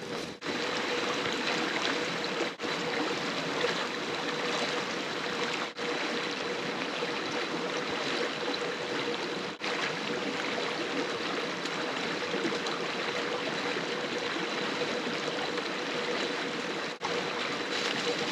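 Steady rush of a shallow mountain stream running over rocks, broken by a few very brief gaps.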